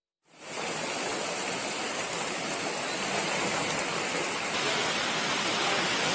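Heavy rain pouring down, a dense, steady hiss that starts abruptly just after the start and goes on without a break.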